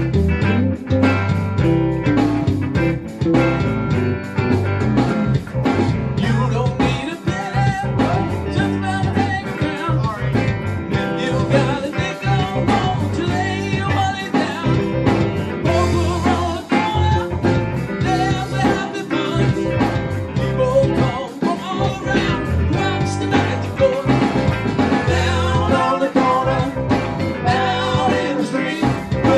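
A band playing a blues-rock song, with guitar, a steady beat and a singing voice.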